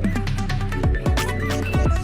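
Electronic background music with a steady beat: deep bass, falling kick-drum hits and crisp percussion.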